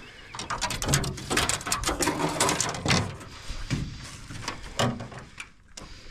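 Scattered clicks, knocks and rattles of handling noise: a fishing rod, tape measure and gear being moved about on the metal floor of a jon boat while a fish is measured.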